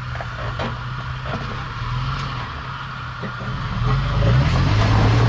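Off-road 4x4's engine running at low revs while crawling over rock, the throttle coming up and the engine getting louder about four seconds in.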